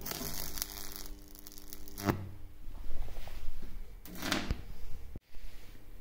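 High-voltage arc from a microwave oven transformer in a resonant circuit with a microwave oven capacitor, buzzing over a steady mains hum for about two seconds. A second, shorter buzz comes about four seconds in.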